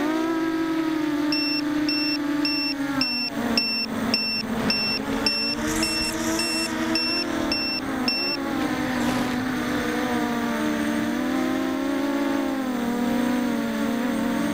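Racing quadcopter's Emax 2204 2300kv brushless motors spinning 6-inch props, heard from the onboard camera: a steady buzzing whine that rises and falls in pitch with throttle. From about a second in until about eight seconds, a high electronic beeper sounds about twice a second.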